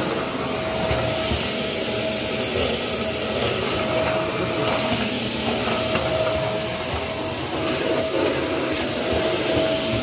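Electrolux Powerspeed 1000 W stick vacuum running steadily while it is pushed across a tiled floor: a constant rushing hiss of air with a thin steady whine that fades in and out.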